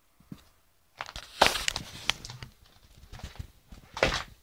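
Rustling and scraping handling noise with scattered sharp clicks as the camera is moved, starting about a second in and loudest near the end.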